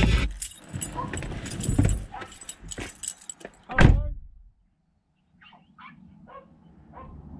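A string of knocks and one heavy thump, then, after a brief dropout to silence, a dog making a run of short, faint high calls, about two a second.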